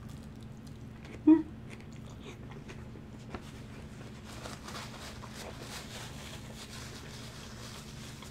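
Chewing of a big mouthful of lettuce-wrapped burger, with soft wet mouth clicks, and a short hummed 'mm' about a second in. Faint rustling of a paper napkin runs through the second half.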